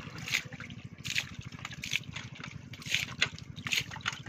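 A steel bowl scooping through wet mud and shallow water, making repeated short splashing and sloshing sounds, with a steady low throb underneath.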